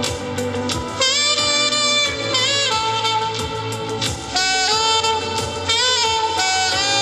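Saxophone playing a slow song melody with vibrato and sliding notes, with a beat behind it.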